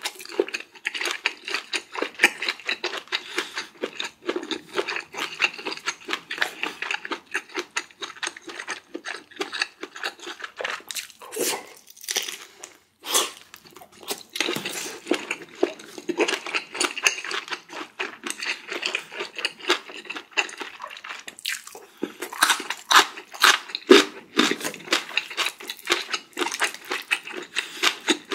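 Close-miked eating: a person chewing and crunching through curry rice with kimchi, a dense run of wet mouth clicks and crunches with a brief pause about halfway.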